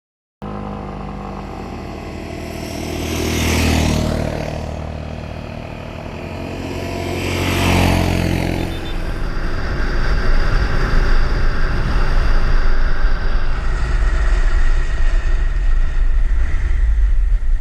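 Motorcycle engine and wind noise while riding. It swells and fades twice in the first half, then settles into a louder, steady rumble.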